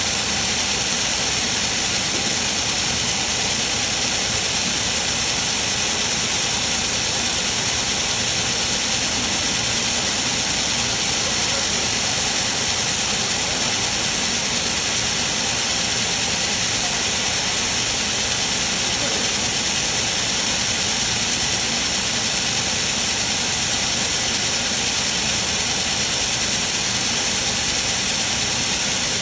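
Steady machine hiss from a robot-arm laser welding setup, even in level throughout with no separate knocks or changes.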